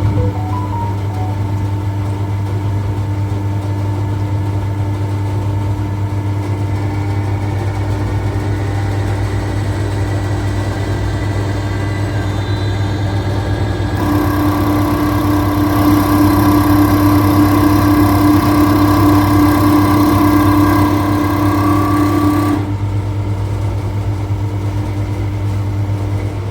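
Common-rail diesel injector test bench running with a steady machine hum. About halfway through it grows louder, with a higher whine, for roughly eight seconds, then drops back.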